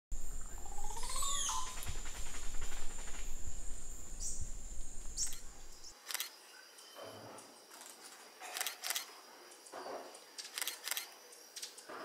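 Forest ambience with bird calls and a steady high tone. The first half is louder, with a low rumble and gliding calls about a second in. The second half is quieter, with a few sharp clicks and short chirps.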